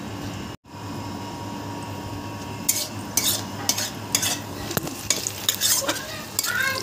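A spatula stirring and scraping sliced onions frying in mustard oil in a kadhai, in a run of quick strokes that starts about a third of the way in. Before that there is only a steady low hum.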